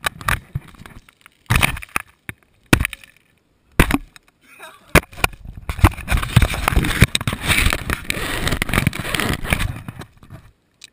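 Sharp thuds of hands striking a volleyball, heard from a GoPro camera inside the ball: four hits a little over a second apart. Then several seconds of dense scraping and rustling as the ball lies and tumbles in the sand, fading out before one more hard hit at the very end.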